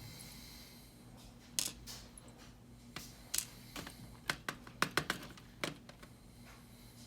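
Irregular light clicks and taps, about a dozen spread over several seconds, from handling a Schlage lock cylinder and its small pins and parts while gutting it.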